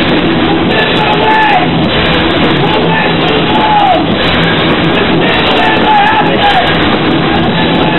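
Rock band playing live and loud, drums and guitar, with a held melody line that bends down at the end of each phrase.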